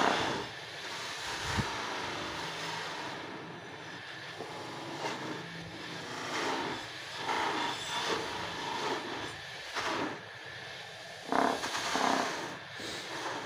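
Bench buffing machine running, its spinning buffing wheel scraping against an aluminium motorcycle front brake plate pressed to it for polishing, with louder surges whenever the part is pushed harder into the wheel. Near the end a bar of polishing compound is pressed to the wheel.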